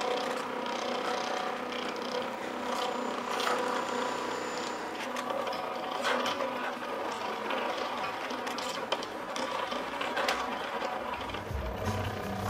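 Stepper motor and gear drive of a kinetic wire bird sculpture running: a steady whine with scattered clicks and ticks from the mechanism.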